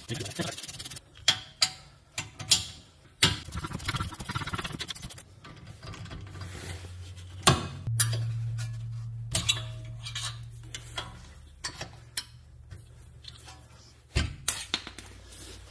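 A ratchet with a 7mm hex bit socket working the rear brake caliper retaining bolts: stretches of rapid ratchet clicking and sharp metal clinks of the tool against the caliper, several in the first few seconds and another about seven and a half seconds in. A low steady hum runs for a few seconds in the middle.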